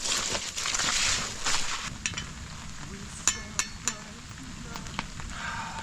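French fries frying in canola oil, a steady sizzle that is loudest in the first two seconds, with three sharp clicks around the middle.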